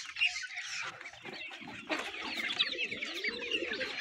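A flock of young Golden Misri chickens peeping and clucking as they feed: many short high chirps throughout, with lower clucking calls joining in from about halfway.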